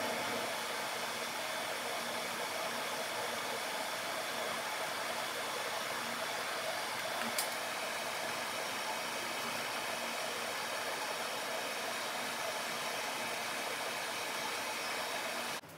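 Steady whir of a pet hair dryer running through the grooming, with one sharp click about halfway through; it cuts off suddenly near the end.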